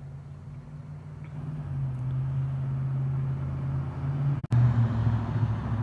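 A road vehicle's engine rumbling and growing louder as it approaches. The sound cuts out for a split second about four and a half seconds in, then returns louder.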